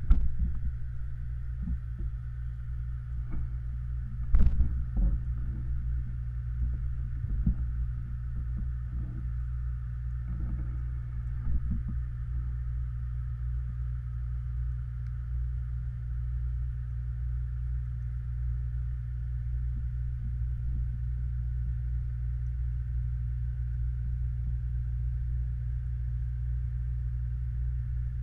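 Steady, muffled low hum and rumble of pond water as picked up by a camera submerged in a koi pond, with a few short knocks in the first dozen seconds, the loudest about four seconds in.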